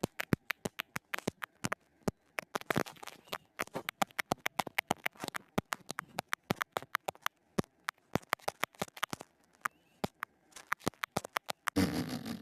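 Rapid sharp clicks, several a second, coming in irregular runs with brief pauses, made by an animal or person as a call to another. A louder rustling noise comes in near the end.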